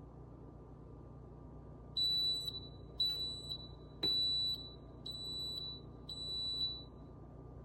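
Drip coffee maker beeping five times, about once a second, each a short high electronic tone over a low steady hum: the signal that the brew cycle has finished.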